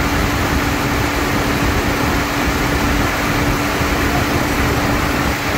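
Car engine idling with the air conditioning switched on: a steady whir with a constant hum.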